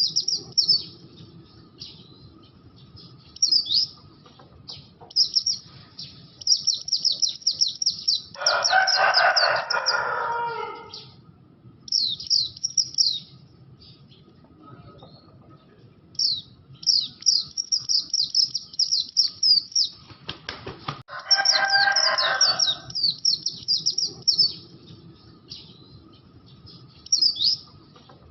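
Oriental white-eye (pleci, buxtoni type) singing: fast runs of high, thin chirps in bursts separated by short pauses. Twice a lower, rougher chattering burst of about two seconds breaks in.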